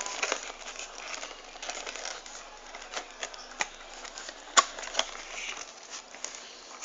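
Irregular clicks, taps and light rustling of a processor's box and packaging being handled, with two sharper clicks a little past the middle.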